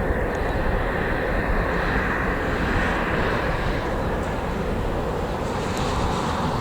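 A landing airliner's engines make a steady rushing noise that swells slightly around the middle, with gusty wind buffeting the microphone underneath.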